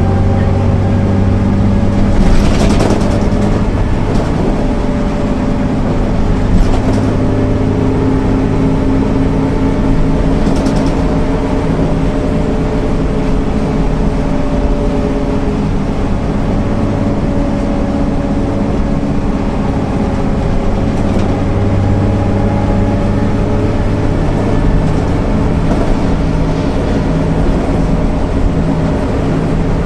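Diesel engine of a MAN NL 262 low-floor city bus running while the bus drives, its pitch drifting slowly up and down as engine speed changes. A few short knocks or rattles come through in the first ten seconds or so.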